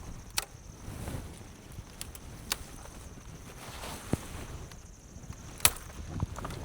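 Footsteps on dry forest litter, with a few sharp cracks of twigs snapping underfoot while searching for firewood.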